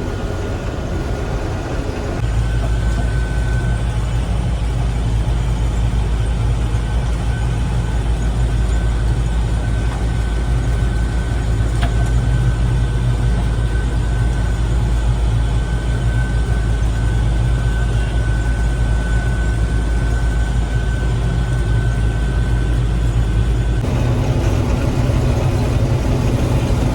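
Gleaner M3 combine running under load while harvesting wheat: a steady drone of engine and threshing machinery with a thin steady whine above it. About two seconds in, the drone turns deeper and heavier, and it returns to its lighter sound near the end.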